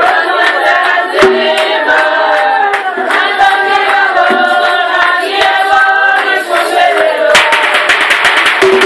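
Group singing over a steady beat of drum strikes. About seven seconds in, the beat turns suddenly into fast, dense drumming.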